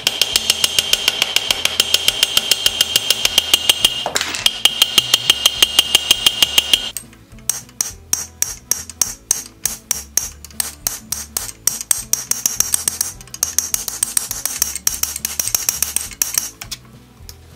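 Rapid hammer blows on a buggy wheel's metal hub, about four a second, each with a bright metallic ring. About seven seconds in they give way to lighter, higher-ringing taps on a steel punch held against the hub flange, which stop near the end.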